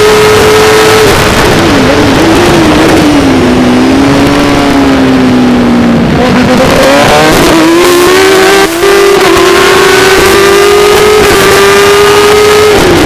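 Racing motorcycle engine, heard from on board, running flat out. It drops in pitch under braking about a second in, with a few downshift blips. It runs lower through the corner, then revs hard again from about six seconds in, with a brief cut near nine seconds as it shifts up. Steady wind noise lies under it.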